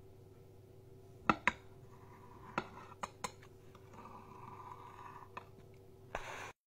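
Plastic cake knife clicking and knocking against a ceramic plate while a slice of frosted cake is cut and lifted: about six sharp clicks, then a short louder scrape near the end. A steady low hum runs underneath.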